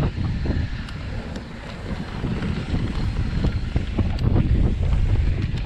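Wind buffeting the microphone of a mountain bike's on-board camera, over the rumble of knobby tyres rolling down a dry dirt trail. A few sharp clicks and rattles from the bike come through.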